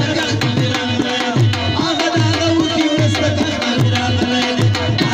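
Tabla playing a steady rhythm of about two low strokes a second, each low stroke bending down in pitch, under a sustained melodic instrument.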